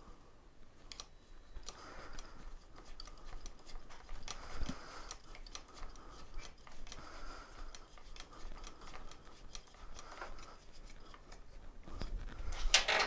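Threaded knob on a folding mobility scooter's tiller being screwed in by hand: small irregular metal clicks and scratchy ticks as the mangled threads rub and catch. A louder scrape and clatter comes near the end.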